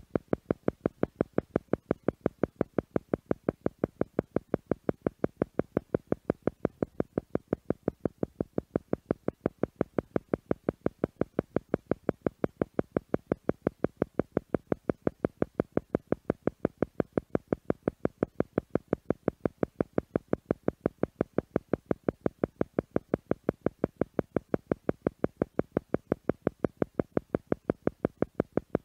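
Theta meditation tone pulsing on and off at about four pulses a second, an isochronic-style beat meant to draw the listener toward the theta brain-wave state.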